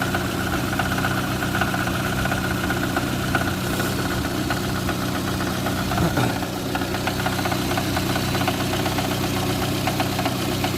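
Engine idling steadily with a knock. The owner finds that the knock drops off when cylinder three is disconnected, which points to cylinder three as its source.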